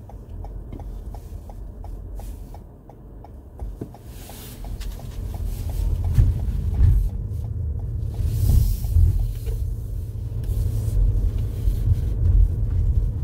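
Low rumble of a car driving, heard from inside the cabin; it grows louder about five seconds in. A faint, regular ticking runs alongside it.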